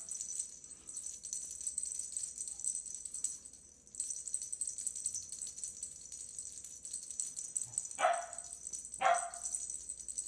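A steady, high, fluttering rattle that breaks off for a moment about four seconds in, then two short kitten mews falling in pitch, about a second apart near the end.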